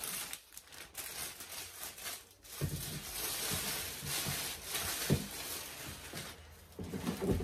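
Plastic packaging bag crinkling and rustling as it is pulled off a metal cart frame, with a few dull knocks of the frame from about a third of the way in.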